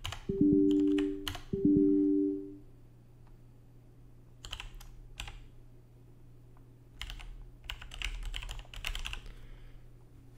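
Typing on a computer keyboard, coming in bursts of keystrokes. Near the start two steady electronic tones sound, one after the other, each lasting about a second and louder than the typing.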